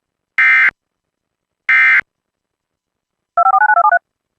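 Emergency Alert System end-of-message (EOM) SAME data bursts: two short, harsh digital buzzes about 1.3 s apart, the last two of the three. About a second and a half later comes a quick run of about ten touch-tone (DTMF) beeps.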